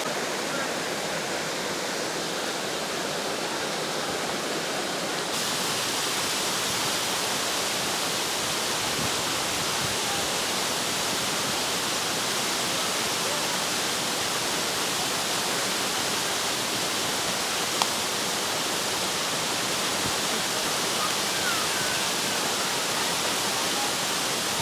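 Steady rushing of a rainforest waterfall, a constant hiss of falling water; the hiss grows a little brighter and louder about five seconds in.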